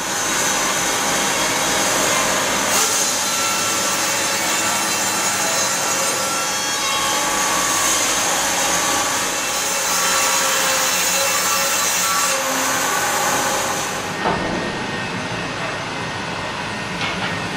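Pilous CTR 800 S log band sawmill cutting through a log: a steady, loud sawing hiss of the band blade in the wood over the running drive. About fourteen seconds in the high hiss drops away and the machine runs on more quietly.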